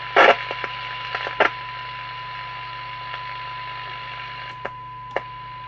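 CB radio receiver audio on a monitor loudspeaker: a steady 1 kHz test tone from the signal generator over receiver hiss and mains hum. A few sharp clicks, loudest about a quarter second in, another about a second and a half in, and two faint ones near the end.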